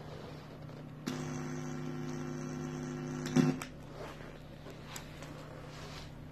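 Steady low hum from a home-made speaker box driven by a PAM8403 class-D amplifier board, with nothing playing through it. About a second in, a louder steady buzz comes through for about two seconds and cuts off with a loud click, followed by a couple of faint clicks.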